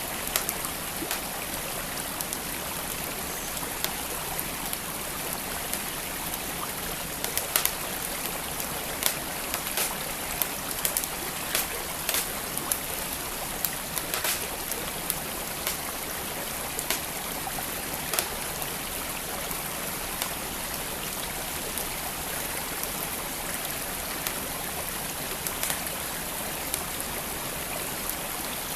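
Steady rush of a flowing stream with a wood fire crackling over it, sharp irregular pops and snaps scattered throughout.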